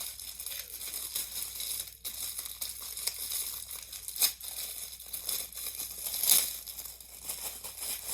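Plastic packaging crinkling and tearing as a fidget toy is unwrapped: a continuous run of crackles, with louder crackles about four and six seconds in.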